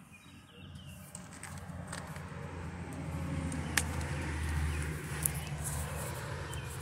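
A vehicle engine running with a steady low hum. It swells in about a second in and then holds, with a sharp click near the middle.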